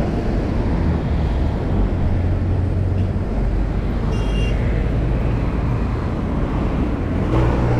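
Steady low wind rumble on the microphone and road noise while riding a bicycle, with a brief high-pitched tone about four seconds in.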